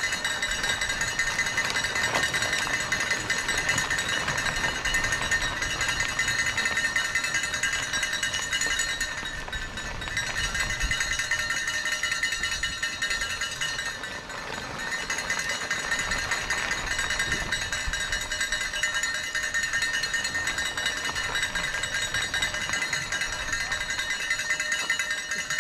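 Cowbells ringing continuously, a dense metallic jangle with rattling, easing briefly twice.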